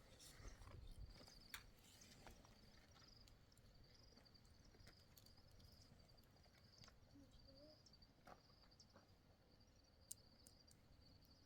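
Faint night insects, likely crickets, trilling steadily in a high, finely pulsed chirr, with a few soft clicks scattered through.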